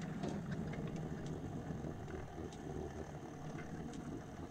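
Small 7¼-inch gauge train running along the track: a steady low rumble with scattered sharp clicks of the wheels on the rails.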